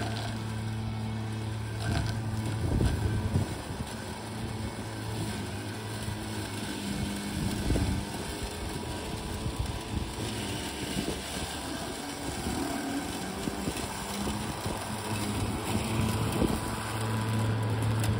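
Makita DLM464 36-volt cordless lawn mower running as it is pushed through long dry grass. Its steady motor and blade hum weakens in the middle and comes back strong near the end as the mower bogs down in the thick grass, with a few knocks along the way.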